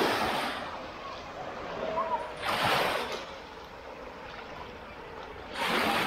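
Sea waves breaking on a beach, a surge of surf about every three seconds.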